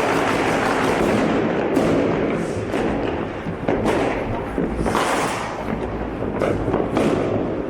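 Dense street fireworks: a steady crackle of firecrackers packed with many sharp bangs and thuds, some heavy enough to sound more like gunfire than fireworks.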